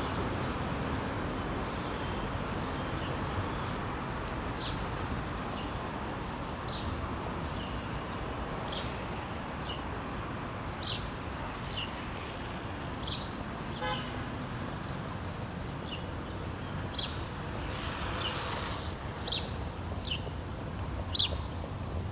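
Steady street traffic noise from passing cars, with regular footsteps clicking on the pavement.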